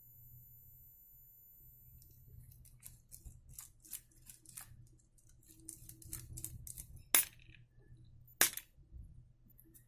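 Small clicks and scrapes of a precision screwdriver and loose screws while an Ontario RAT-1 folding knife is taken apart. Two sharp, louder clicks come about seven seconds in and again a second and a half later.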